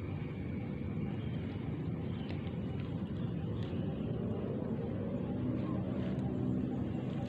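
Distant engine noise: a steady low rumble that swells about two-thirds of the way through, its hum rising slightly in pitch.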